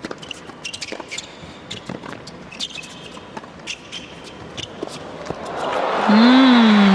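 Tennis rally on an indoor hard court: ball struck back and forth by racquets, with shoe squeaks on the court. About five and a half seconds in the point ends and the crowd starts cheering and applauding, with one long drawn-out voice call, rising then falling in pitch, as the loudest sound near the end.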